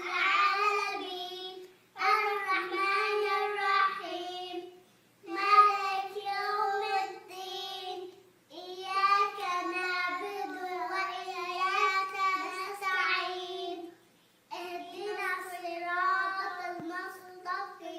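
A young child reciting the Quran in a melodic chant, in long held phrases with short pauses for breath between them.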